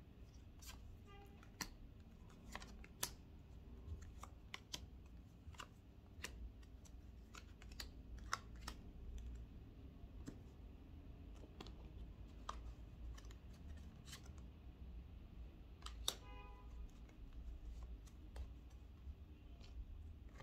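Faint, irregular clicks and taps of tarot cards being handled and shuffled on a table, with a few sharper snaps.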